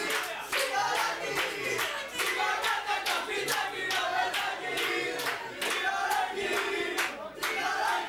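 Several men shouting over one another in a heated on-field argument, with many sharp clicks or knocks through it.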